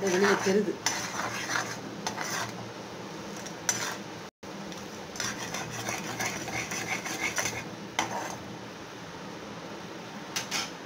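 Steel spatula scraping and stirring across the bottom of a pan in irregular strokes, over the steady hiss of jaggery syrup boiling as the jaggery dissolves in the water.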